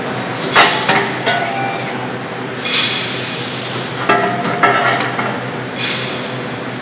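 Trunfo CNC press brake running with a steady hum, broken by about seven sharp metallic clanks and rattles of sheet metal, the loudest about half a second in.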